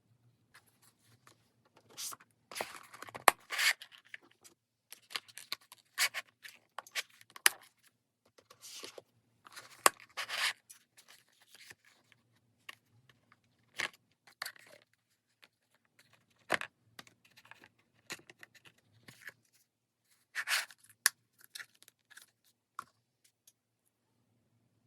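Paper and stationery being handled on a desk: irregular bursts of rustling, scraping and tearing, with scattered sharp clicks.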